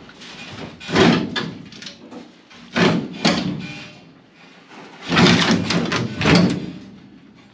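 Heavy steel trunk floor panel with its wheel tubs banging and scraping against the car body as it is forced into a tight fit. Loud metal clunks and scrapes come in three bursts, the last one longer.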